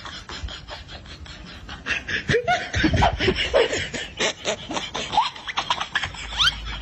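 People laughing in choppy bursts, picking up about two seconds in, mixed with clattery knocks and a few short rising squeaks.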